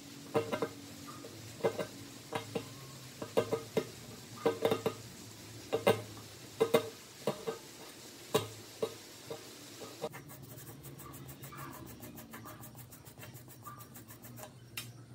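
A pointed steel pick scraping rust out of the grooves of a rusty vise jaw plate, in short irregular scratches and clicks. About ten seconds in, it changes to a brass wire brush scrubbing the plate in quick, even strokes.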